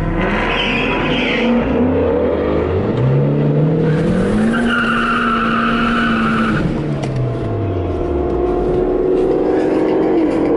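Car engine revving up, held at high revs, then dropping back. Tyre squeal runs while the revs are held, as in a drag-strip burnout, and a shorter squeal comes in the first second or so.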